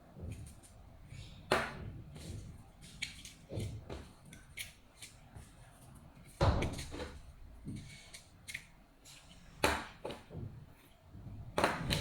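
Plastic clicks and knocks from toy gun magazines being handled and loaded with soft foam bullets: light ticks throughout, with three louder knocks spread through.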